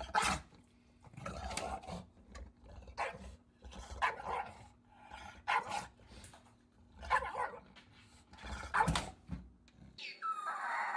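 A bulldog with its head inside the drum of a front-loading washing machine barks, about eight short woofs spaced roughly a second apart. Near the end a steady, drawn-out howl begins.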